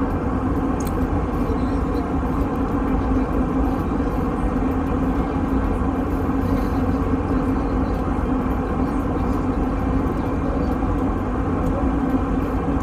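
Steady drone of a jet airliner in flight, heard from inside the cabin: engine and airflow noise with a low hum running through it.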